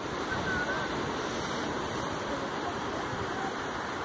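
Steady rush of surf on the beach, mixed with wind on the microphone.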